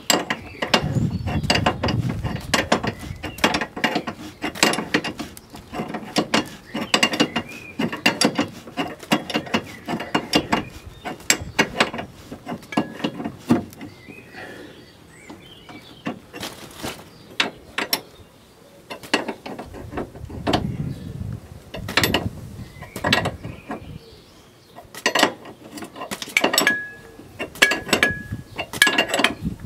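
Ratcheting wrench clicking in quick runs of strokes as a nut under the front suspension is turned, busiest in the first ten seconds, then in sparser bursts with short pauses between.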